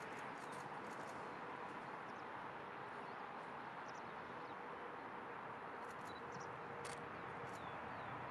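Small birds chirping, short high chirps scattered through, over a steady outdoor background hiss with a faint steady hum.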